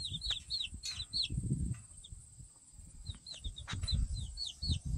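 Chicks peeping in quick runs of short falling chirps, one run in the first second or so and another from about three seconds in, over a low rumble.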